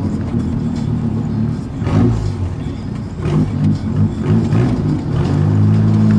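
Volkswagen Gol's engine and exhaust rumbling loudly on the move, the revs shifting up and down and growing louder and steadier near the end as the car pulls.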